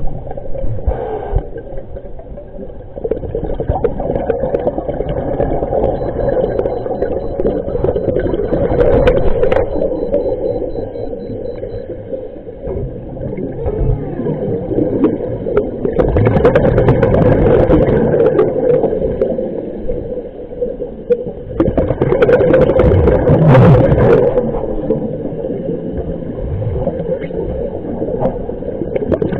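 Underwater audio from a camera submerged in a lake: muffled rushing and rumbling of water against the housing over a steady droning hum. The rumble swells louder twice, about halfway through and again a few seconds later.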